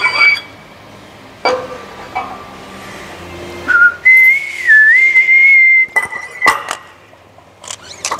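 Metal gym gear being handled: a few clanks of weight plates and chains as more weight goes onto a barbell in a power rack. Midway comes one steady high whistle lasting about two seconds, with a short dip in pitch, the loudest sound here.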